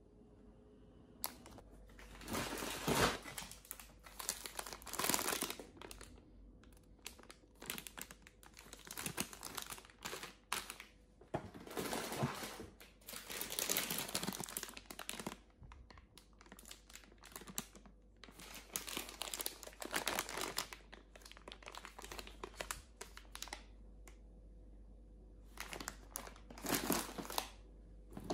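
Plastic snack packets crinkling as they are handled and laid out one after another, in irregular bursts with short pauses between them.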